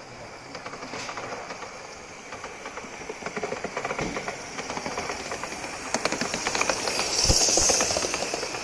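Live-steam Gauge 1 model steam locomotive running toward the microphone, a rapid train of chuffs and clicks growing louder, with a strong steam hiss about seven seconds in.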